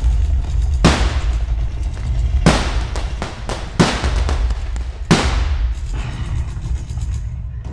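Stage pyrotechnic charges exploding over a steady low rumble: four loud blasts about a second and a half apart, with smaller cracks between them. This is the staged battlefield barrage that opens the song.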